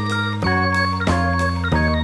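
Background music: sustained keyboard chords over a bass line, changing roughly every half second.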